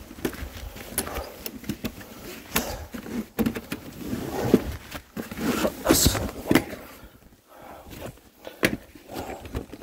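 Footsteps on a concrete floor with irregular knocks and rustling as wooden-framed folding low chairs in canvas covers are handled and carried. There is a quieter stretch about two thirds of the way through, then a sharp knock.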